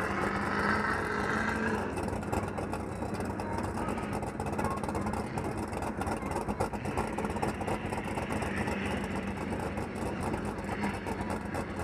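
Sherp ATV's diesel engine idling steadily.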